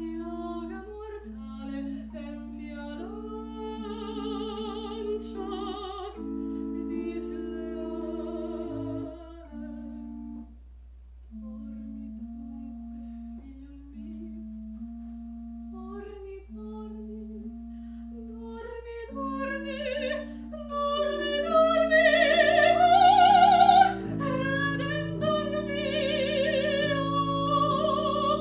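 Female classical singer performing an aria with vibrato over the sustained notes of a small chamber organ. After a quieter stretch in the middle the singing swells to its loudest, highest phrase about two thirds of the way through, with a lower bass line joining in the organ.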